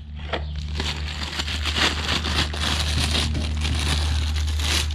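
A machine running with a steady low hum under a loud hissing, crackling noise that builds up over the first second.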